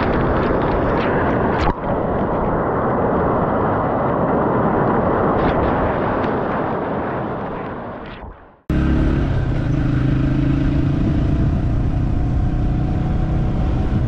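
Waterfall rushing, a steady loud noise of falling water that fades out about eight seconds in. Then, abruptly, a motorcycle engine running steadily as the bike rides along.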